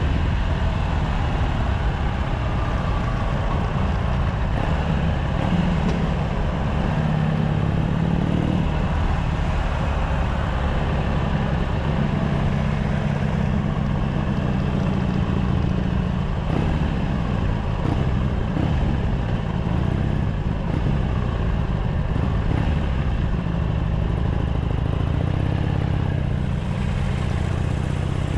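Harley-Davidson Sportster SuperLow 883's air-cooled V-twin on its stock exhaust, running while the bike is ridden. The engine note rises and falls several times with the throttle.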